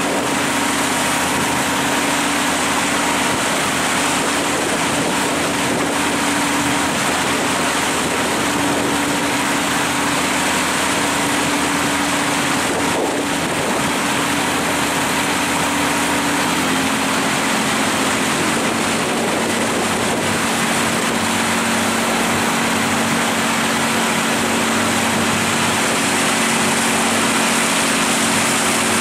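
Boat engine running steadily under way, with the rush of water and wind over it. The engine note shifts slightly lower a little past halfway.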